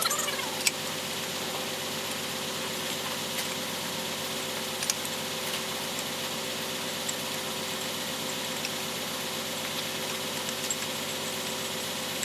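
An engine idling steadily, with a few light clicks over it.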